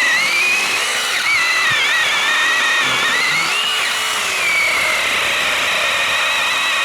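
Cordless battery-powered saw cutting firewood, its motor whining steadily with the pitch dipping and recovering as the blade loads in the wood.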